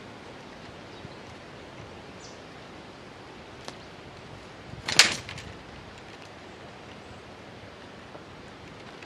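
A short flurry of wing flaps from a bulbul, about halfway through, over a steady background hiss.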